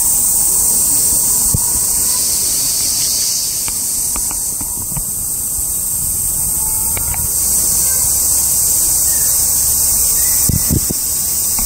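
A loud, steady chorus of cicadas shrilling in summer heat, swelling and easing in strength every few seconds.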